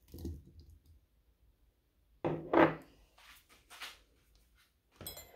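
Diced mango tipped from a small glass bowl into a glass goblet, landing with a soft thump, followed by a few knocks and clicks of glassware handled on a wooden table, the loudest about two seconds in.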